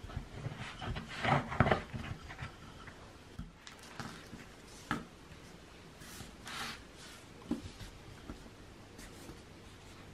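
Wooden rolling pin rolled over the rim of a fluted metal tart tin, the edge cutting through the overhanging shortcrust dough with a rubbing, crackling sound that is loudest about a second and a half in. After that come a few softer rubs and taps as the trimmed pastry and the tin are handled.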